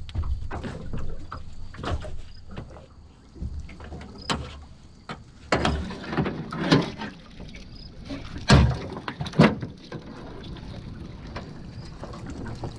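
A mud crab pot being hauled up and handled in a small boat: handling noise with a series of sharp knocks and clatters against the boat, the loudest about eight and a half seconds in.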